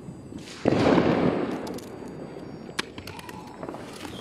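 Small firework set off on the pavement: a brief hiss, then a loud rushing burst about half a second in that lasts around a second and fades. Scattered crackles and pops follow.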